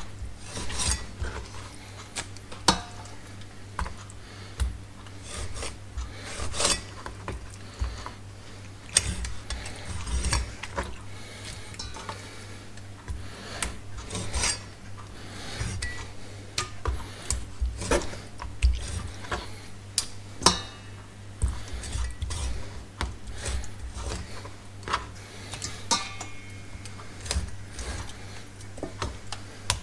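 A Chinese cleaver knocking on a bamboo cutting board as raw chicken wings are scored, in irregular sharp knocks every second or so. A steady low hum runs underneath.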